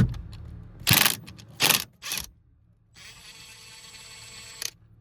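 Impact wrench with a 17 mm socket working the steering-wheel retaining nut: three short bursts, then a steady run of almost two seconds that cuts off suddenly as the nut comes loose.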